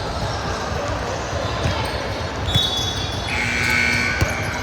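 A ball bouncing on a hard indoor court, with sharp thuds about two and a half seconds in and again near the end. A high squeak sounds briefly, then a held high tone lasts about a second, over a background of voices in a large hall.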